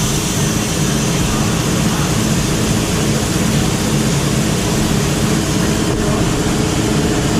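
Tire-mounting equipment running loud and steady while a low-profile tire goes onto a three-piece wheel: a low mechanical hum under a strong hiss of air.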